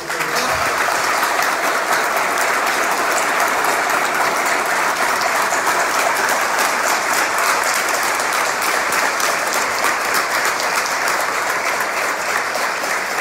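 A roomful of people applauding: dense, many-handed clapping that breaks out suddenly and keeps up at a steady level.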